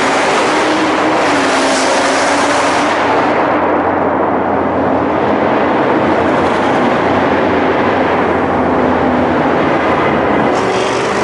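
Loud car engine and exhaust noise, a steady low drone whose higher part dies away about three seconds in and surges back briefly near the end.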